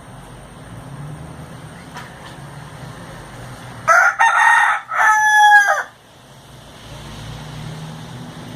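A domestic rooster crowing once, about four seconds in: a loud two-part crow lasting about two seconds.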